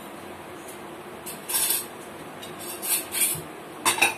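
Dishes and cutlery clinking in several short clatters.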